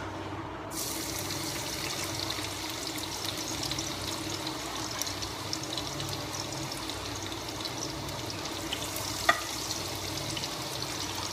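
Minced garlic dropped into hot oil in a frying pan, starting to sizzle about a second in and then crackling steadily. There is one sharp knock near the end.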